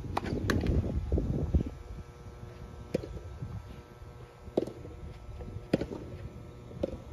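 Tennis ball play: sharp knocks of the ball coming off rackets and bouncing on the court, a few single knocks about a second or so apart. A low rumble, like wind on the microphone, fills the first second and a half.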